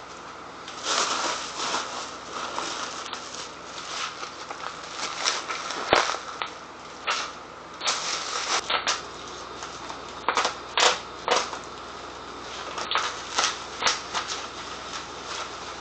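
Irregular clicks, knocks and rustling as the parts of a copper still are handled and fitted together, with one sharp knock about six seconds in.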